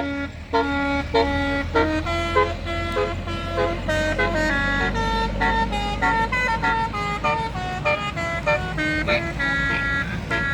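Bus 'telolet basuri' musical horn playing a quick melody of separate notes, over the low rumble of the bus's engine.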